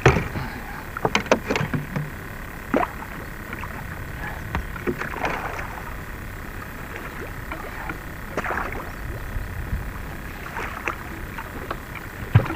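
Large flathead catfish splashing at the surface beside a boat as it is worked into a landing net: a string of sharp splashes and knocks, several close together in the first two seconds, then one every couple of seconds over a steady wash of water.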